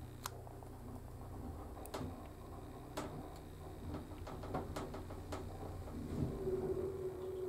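Car of a Hitachi six-person passenger elevator running: a steady low hum with scattered sharp clicks. About six seconds in a steady tone comes in as the car reaches the top (R) floor.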